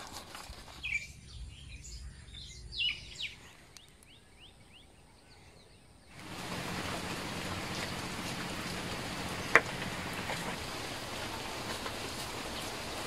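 Small birds chirping over a quiet background. About six seconds in, it switches suddenly to a steady, even hiss of rain, with one sharp click a few seconds later.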